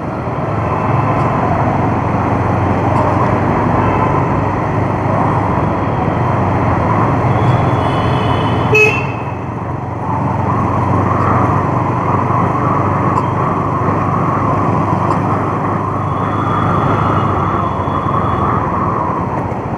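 Bajaj Avenger motorcycle's single-cylinder engine running steadily while riding, with wind and road noise. A short vehicle horn toot sounds about nine seconds in.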